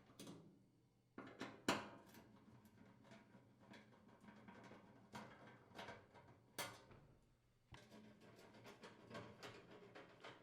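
Faint clicks and light metallic knocks of a nut driver unthreading screws from a gas range's sheet-metal main top, with a few sharper knocks, the loudest about two seconds in.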